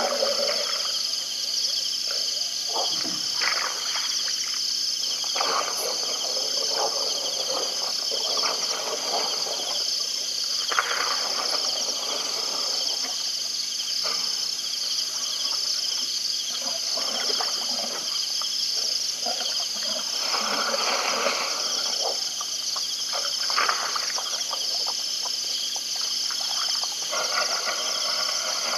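Night-time insect chorus: a steady high-pitched trilling that pulses roughly once a second, with irregular lower animal sounds coming and going beneath it.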